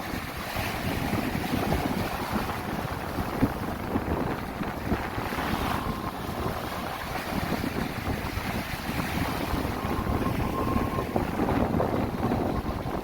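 Sea waves washing in and steady wind, with wind buffeting the microphone in a low rumble.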